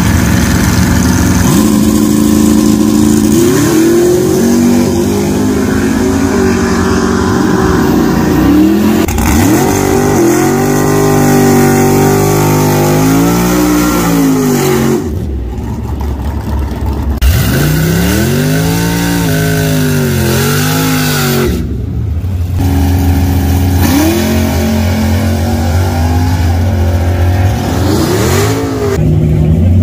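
Drag-racing cars revving hard and launching at the strip, the engine pitch repeatedly climbing and falling back as they rev and pull away, including a burnout. The sound breaks off sharply a few times where separate runs are cut together.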